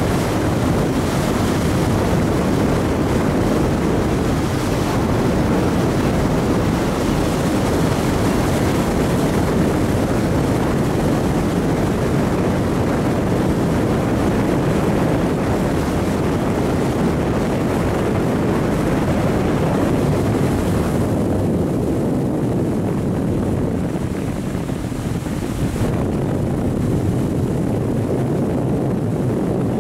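Boat motor running steadily under way, mixed with wind buffeting the microphone and water against the hull; the higher hiss eases about two-thirds of the way through.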